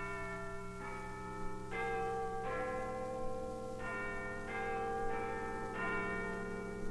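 Bells chiming eight notes in two phrases of four, each note ringing on under the next.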